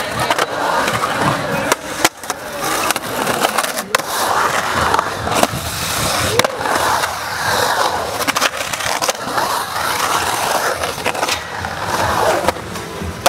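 Skateboard wheels rolling and carving around a concrete bowl, the rolling rising and falling in pitch with each pass up and down the walls. Several sharp clacks of the board striking the coping and landing.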